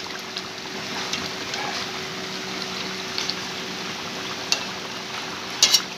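Fish curry boiling in a metal wok while a ladle stirs it: steady bubbling with scattered small clicks and scrapes, and one sharper knock of the ladle on the pan near the end.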